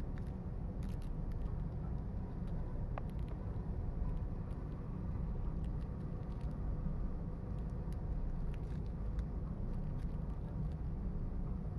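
Steady low background rumble, with a faint steady hum and a few light ticks.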